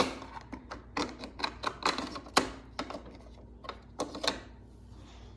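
Small plastic toy items clicking and clattering as they are loaded into the slots of a plastic toy vending machine. The clicks come in an irregular run, thick at first and thinning out after about four seconds.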